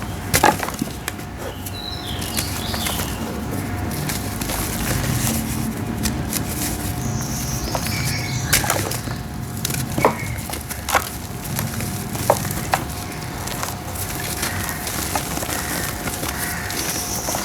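Dried red brick dirt shapes crumbling: a steady gritty crunching with sharp cracks as pieces snap apart, one about half a second in and several between about eight and thirteen seconds in.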